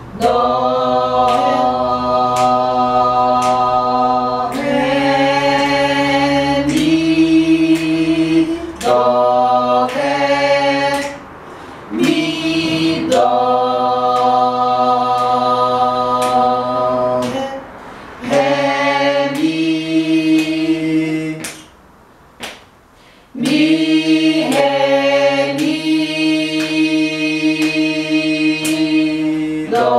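A small group of women's voices singing a solfège exercise a cappella, holding long notes and stepping from pitch to pitch in phrases broken by short pauses, the longest about two-thirds of the way through.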